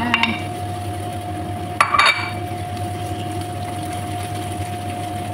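Raw chicken pieces sizzling in a hot frying pan with garlic and ginger as a wooden spatula stirs them, with a few sharp knocks at the start and a brief clatter about two seconds in. A steady hum runs underneath.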